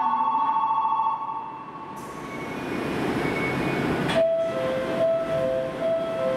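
Electric platform departure bell ringing with a rapid two-tone trill, stopping about a second in; a train's running noise then builds and cuts off suddenly about four seconds in, after which a two-note chime repeats over and over.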